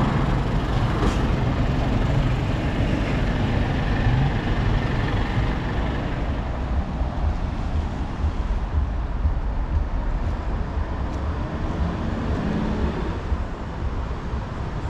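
Heavy road traffic on a busy dual carriageway: buses, lorries and cars passing in a continuous rumble of engines and tyres, easing a little near the end.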